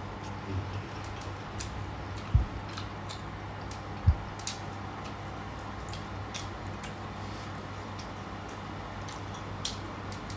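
Close-miked mukbang eating sounds: scattered crisp crunches and wet mouth clicks from chewing fried snacks and pecel, over a steady low hum, with two dull thumps about two and four seconds in.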